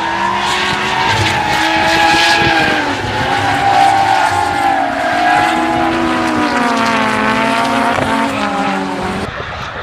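Drift car engine revving hard, its pitch rising and falling as the throttle is worked through the slide, over the hiss of tyres squealing.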